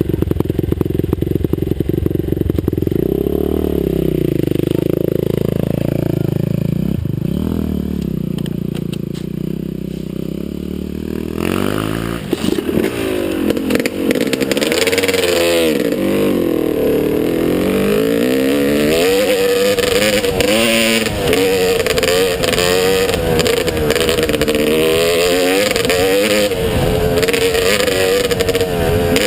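Motocross bike engine being ridden hard, its revs rising and falling again and again. About a third of the way in it turns louder and rougher, with rattling and rushing noise added over the engine.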